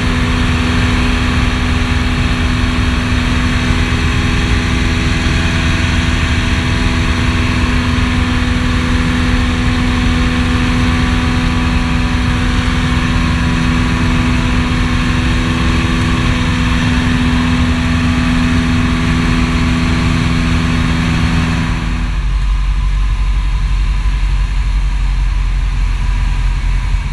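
Piper PA-18 Super Cub's piston engine and propeller running steadily at climb power, heard from inside the cockpit. About twenty seconds in the sound changes suddenly: the higher tones drop away and a deep low drone remains.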